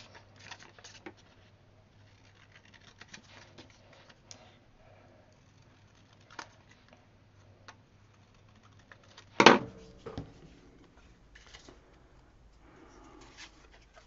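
Scissors snipping through thin printed paper, with light paper handling and rustling, in small quiet clicks. One much louder sharp click or knock stands out about nine and a half seconds in.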